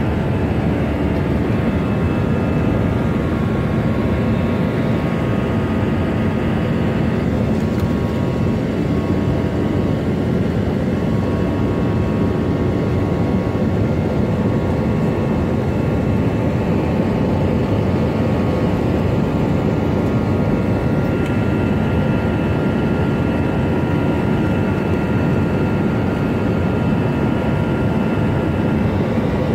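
Steady cabin noise of a jet airliner climbing after takeoff, heard inside the cabin by the wing: the continuous din of the turbofan engines and airflow, with faint steady whining tones over it.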